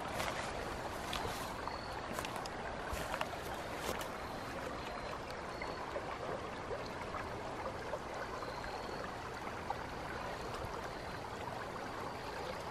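Creek water running steadily, with a few sharp clicks in the first four seconds.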